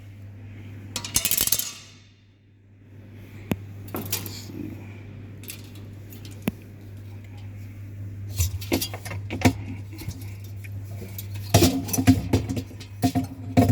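Metal tools and refrigerator tubing being handled: scattered clinks, taps and sharp clicks, more of them near the end, over a steady low hum. A short hiss comes about a second in.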